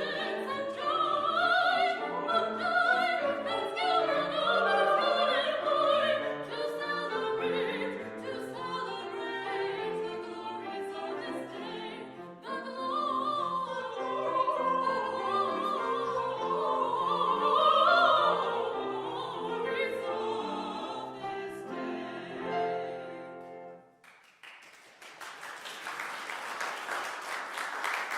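Classical solo singing of a Baroque song with instrumental accompaniment, ending on a final cadence about 24 seconds in. The audience then breaks into applause.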